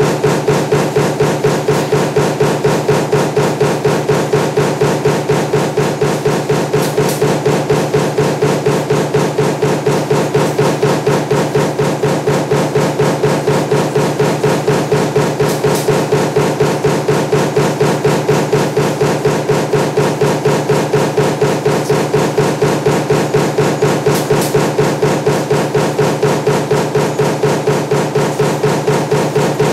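Mechanical punch press running a stamping die for table fan motor laminations, cycling steadily at about three strokes a second over a constant machine hum.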